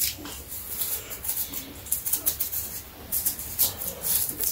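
A blade peeling the skin off a large Asian pear: a run of short, crisp scraping strokes, coming faster near the end.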